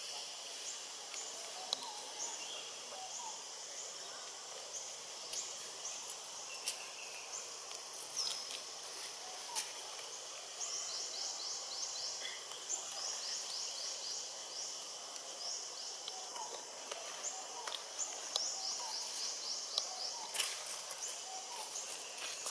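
Outdoor nature ambience of birds chirping, with scattered light clicks. About eleven seconds in, a fast run of repeated high chirps starts and comes back in stretches.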